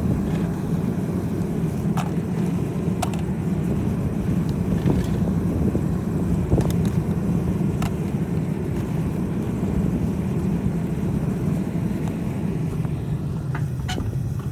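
Propane foundry furnace burner running, a steady low rumbling rush as the furnace heats up, with a few sharp clicks scattered through it.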